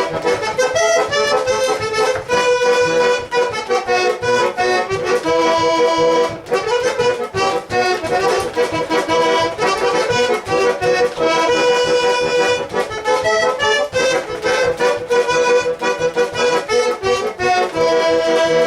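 Garmon, a Russian button accordion, playing a lively instrumental interlude between verses of a folk song: a melody of quickly changing notes over a steady rhythmic accompaniment.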